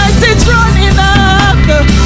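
Loud live gospel praise music: a voice singing held, wavering notes over a full band accompaniment.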